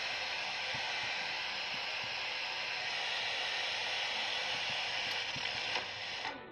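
FM radio receiver hissing with static on a frequency with no signal, a steady even hiss that cuts off suddenly near the end as the transmitter's carrier captures the receiver.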